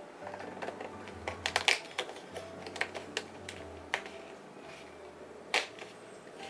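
Paper and cardboard calendar pieces being handled: scattered crisp clicks and taps, with sharper snaps about a second and a half in and again near the end.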